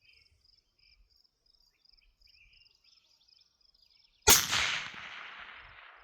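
A single Barrett MRAD rifle shot about four seconds in, sharp and loud, its report fading out over the next second and a half. Before it, insects chirp steadily in a regular pulse.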